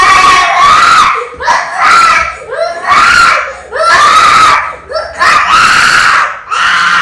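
Baby crying hard and without pause, in loud wailing cries of about a second each with short catches of breath between them.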